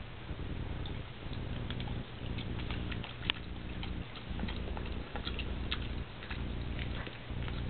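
A dog eating food off a fork: scattered small clicks and smacks of chewing and licking, over a low rumbling hum that breaks off about once a second.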